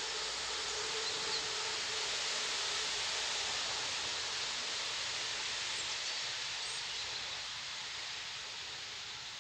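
Steady outdoor background hiss with a faint low hum in the first couple of seconds and a few faint, short bird chirps.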